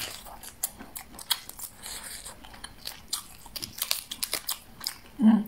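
Close-miked eating of a boiled prawn: irregular sharp crunches and crackles of shell being pulled apart and chewed. There is a brief hum of voice near the end.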